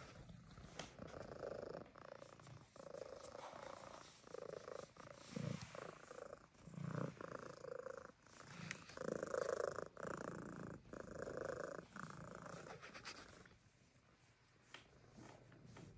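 Siamese cat purring loudly, in a rhythm of pulses with short breaks between them, stopping about 13 seconds in.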